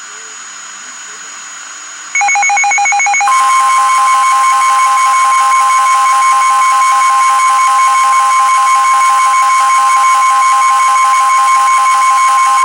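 Emergency Alert System broadcast tones: low hiss at first, then about two seconds in a short burst of rapid pulsing beeps, and about a second later a loud, steady single-pitch alert tone, the weather-radio warning alarm, that holds for the rest, with a beeping pattern layered over it.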